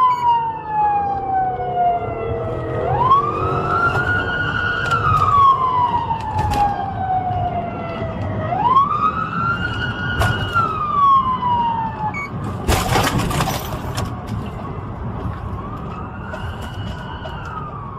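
Police car siren on wail, heard from inside the pursuing cruiser: each sweep rises quickly and falls slowly, repeating about every five and a half seconds over engine and road rumble. A short burst of noise about thirteen seconds in.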